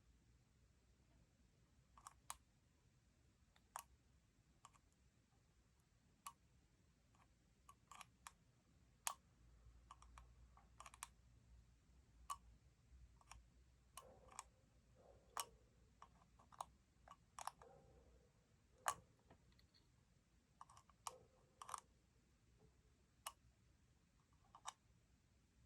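Faint, irregular clicks and light taps over near silence, sometimes in quick pairs, a second or so apart and coming more often in the second half.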